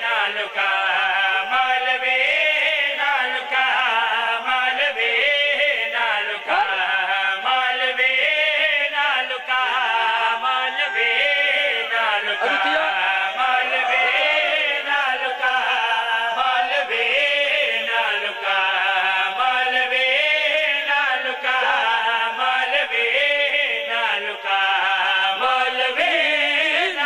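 Several men chanting a devotional Urdu-Punjabi qaseeda together into a microphone, a continuous melodic chant with no pause.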